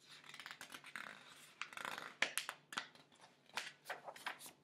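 Pages of a large picture book being handled and turned: paper rustling and rubbing with irregular sharp crinkles.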